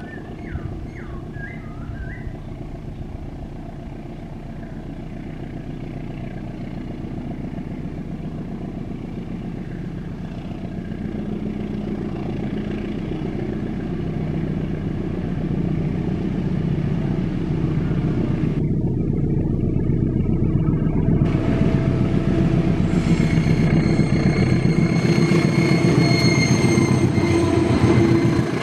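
Diesel-hauled train's engine and wheels rumbling, growing steadily louder as it draws closer. About two-thirds of the way through, high thin tones join the rumble.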